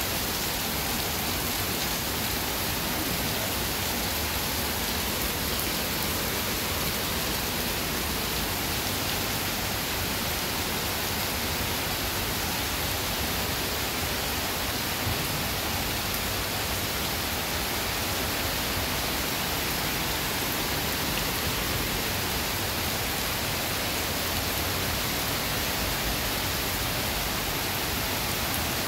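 Heavy rain pouring down onto wet paving in a steady, even hiss.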